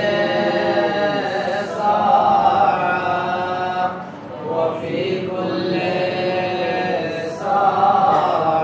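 A man's voice chanting a melodic religious recitation into a microphone, in long drawn-out phrases held for two to three seconds each, with short breaks between them.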